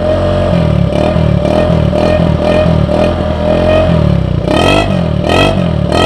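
Honda BeAT scooter's single-cylinder engine running loud through an MP7-regulation 'hiung' racing exhaust, with two short throttle blips near the end that briefly raise the pitch.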